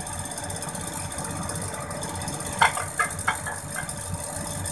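Turbo broiler running with a steady whir as it preheats, with about four short sharp clicks a little past halfway.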